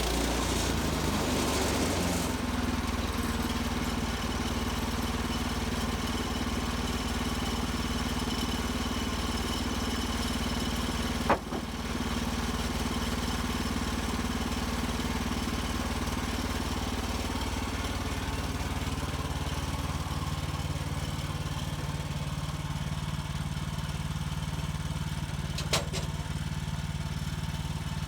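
Gas engine of a Woodland Mills HM130 Max portable bandsaw mill running steadily, its note shifting slightly a little over halfway through. A few sharp clicks, one about eleven seconds in and two near the end.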